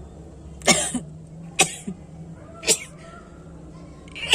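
A person sneezing four times, short sharp bursts about a second apart, the last just at the end.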